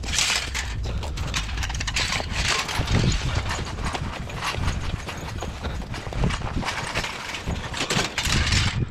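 Dense, irregular crunching and knocking, without letup, as storm debris is broken up and handled in the snow; it stops abruptly near the end.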